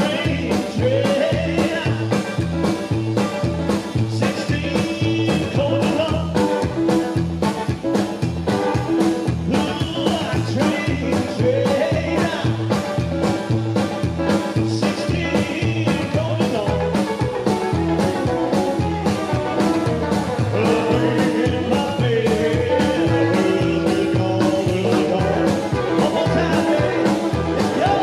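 Live rock and roll band playing: a male singer over slapped upright double bass, drum kit and electric guitar, with a steady driving beat. The vocal lines come and go over the beat.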